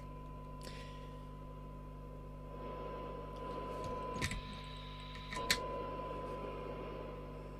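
Faint steady 1 kHz test tone over low mains hum on a radio service bench. About four seconds in there is a click, the tone drops out and a higher tone sounds briefly, then a second click brings the 1 kHz tone back.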